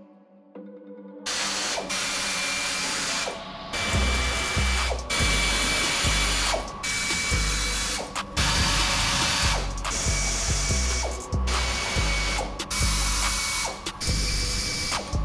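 Pneumatic wrench, driven by an air hose, run in repeated bursts of one to three seconds with short gaps, hissing with a steady high whine and low pulsing, as it undoes the bolts holding the removable top on a 1971 Chevy K5 Blazer. It starts about a second in.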